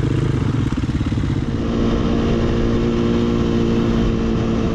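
Dual sport motorcycle engine running at low speed, its note settling into an even hum about a second and a half in.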